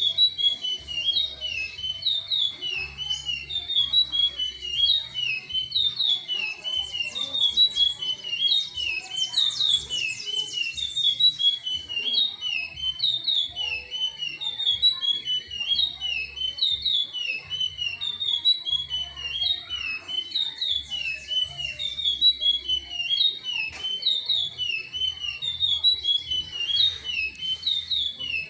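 Chestnut-bellied seed finch (curió) singing continuously: a rapid run of clear whistled notes, the same short phrase repeated over and over.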